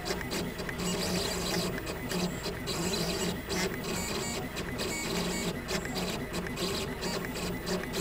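2008 Gravograph M20 three-axis engraving machine running a diamond-drag engraving job on an anodized aluminium plate: its motors whir in a steady stop-start pattern as the head traces out letters in short moves with brief pauses between them.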